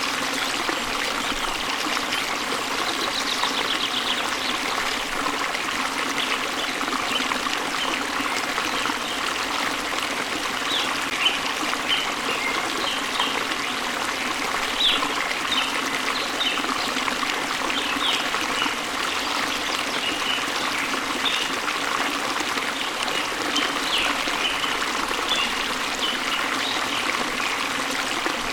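Steady rush of water from a waterfall flowing into a stream, with small birds chirping over it, a brief trill about three seconds in and scattered high chirps from about ten seconds on.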